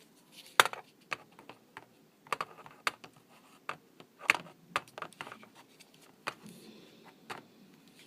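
Irregular sharp clicks and taps of hard plastic and small parts being handled on a laptop, as a RAM module is swapped out.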